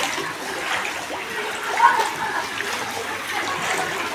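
Knee-deep floodwater sloshing and splashing as someone wades through it, a continuous churning water sound with one louder moment just under two seconds in.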